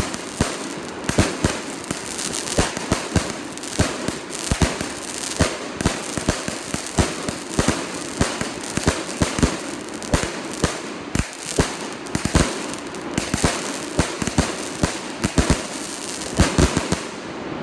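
A 36-shot, 200-gram consumer firework cake firing: a fast, uneven run of sharp shot reports and bursts over continuous crackling from its sparkle effects.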